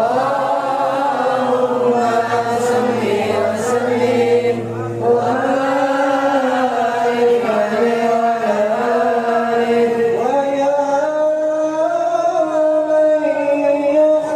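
A sholawat sung in Arabic-style chant, one melodic line of long held notes that bend and ornament in pitch without a break.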